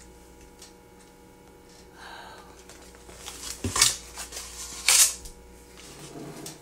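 Two sharp clicks about a second apart, with softer rustling handling noise around them.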